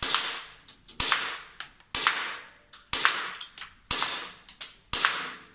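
Vorsk Glock gas blowback airsoft pistol firing single shots about once a second, each shot a sharp crack that echoes briefly, with lighter clicks between the shots.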